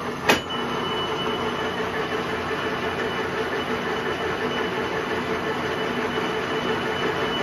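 Metal lathe running with its power feed engaged, gears and lead screw giving a steady mechanical whir with a faint high whine, as the newly fitted lead screw and nut are tested. One sharp click near the start.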